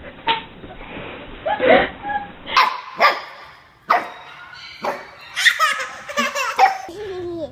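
A husky puppy barking in short, sharp yaps, about four of them spaced roughly half a second to a second apart, followed by a baby laughing.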